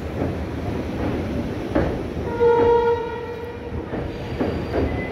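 Express train running, heard from on board: a steady rumble with a few knocks of the wheels. About halfway through, a short train horn blast sounds as one steady note and fades away over about a second.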